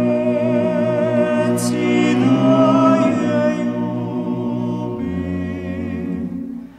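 Background music of voices singing a cappella, holding long sustained chords with a slight waver, the lower part changing about five seconds in and the chord ending just before the close.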